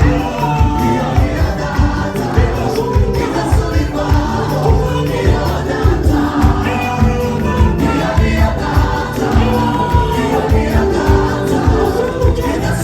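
Gospel choir singing in harmony over instrumental backing with a steady beat.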